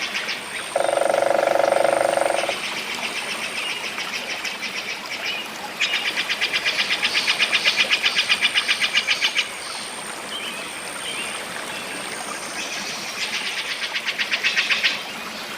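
Wild animal calls in a forest soundscape: long rapid trills of evenly spaced high pulses that repeat several times, about six pulses a second. A lower, buzzier pulsed call sounds briefly about a second in. Under the calls there is a soft steady hiss and a faint, thin high tone that keeps starting and stopping.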